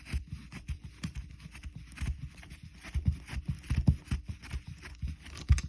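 Quick, irregular metallic clicks and knocks of a screwdriver working a screw loose down the shackle hole of a padlock, with small thuds of the lock body being handled; the clicking stops suddenly at the end.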